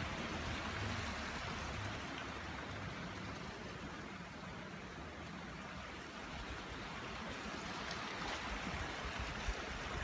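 Mountain stream running over rocks: a steady rush of water that fades a little in the middle and grows again.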